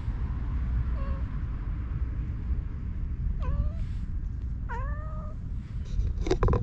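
A long-haired stray cat meowing three times in short, hooked calls, the first faint and the last the longest, over a steady low rumble. A cluster of sharp clicks comes near the end and is the loudest moment.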